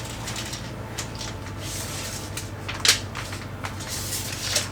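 Handling noises while measuring a board: a few sharp clicks and clacks, the loudest about three seconds in and another near the end, over a low steady hum.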